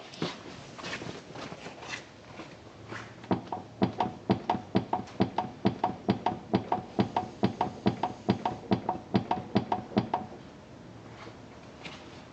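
A few scattered clicks, then a fast, even run of sharp knocks, about four a second, each with a short ringing tone, stopping about ten seconds in.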